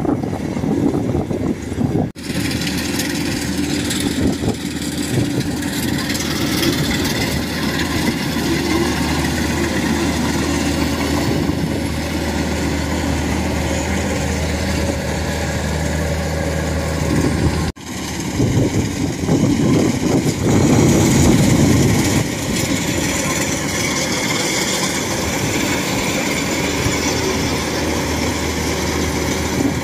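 Kubota DC-105X combine harvester running steadily under load while it cuts and threshes rice: a continuous engine drone with machinery noise, broken abruptly twice.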